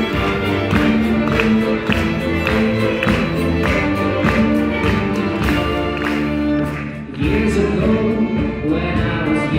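Live folk-style pop tune: a solo violin playing the lead over a string orchestra's held chords and a steady beat of about two strokes a second. The music dips briefly about seven seconds in, then the full band comes back.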